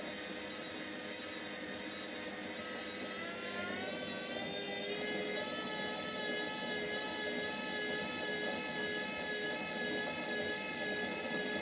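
Washing machine on its spin cycle. The drum motor's whine rises in pitch and gets louder about three seconds in as the drum speeds up, then holds steady at the higher speed.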